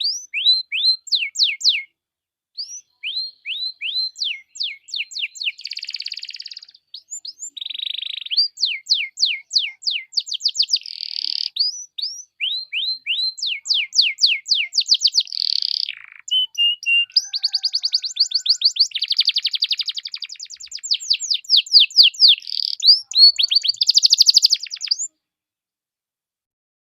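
Domestic canary singing: runs of quick, high, downward-sweeping whistled notes alternating with fast buzzy trills. The song stops near the end.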